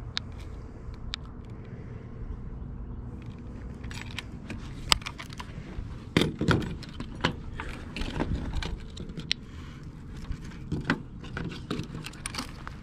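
Clicks and rattles of a handheld digital fish scale with a spring-loaded lip-grip being handled and clamped shut: the metal hook, clip and spring jangle in irregular clusters.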